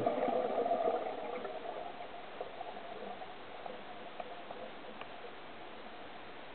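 Scuba diver's exhaled bubbles gurgling underwater, strongest in the first second or so and then trailing away, followed by a few faint scattered clicks.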